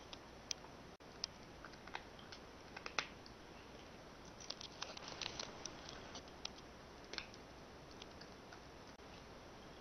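Cat chewing dry cat food: scattered faint crunches and clicks, busiest around five seconds in.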